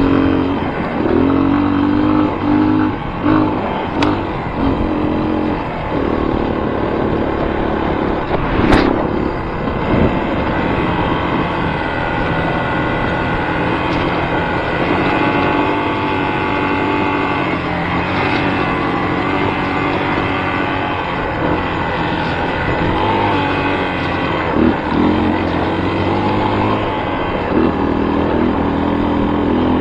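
A motor vehicle engine running, its pitch holding steady and then shifting up and down in steps, with a short sharp noise about nine seconds in.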